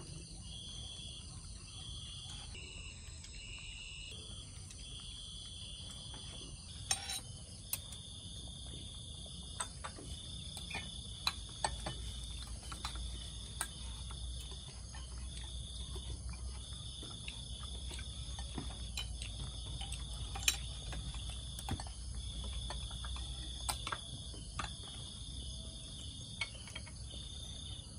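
Night insects trilling steadily in repeated pulses of about a second each at one high pitch. Scattered light clicks of spoons against ceramic bowls are heard over them.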